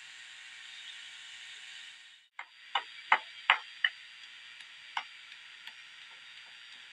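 A steady hiss that cuts off about two seconds in, followed by five sharp clicks: four close together within about a second, then one more a second later.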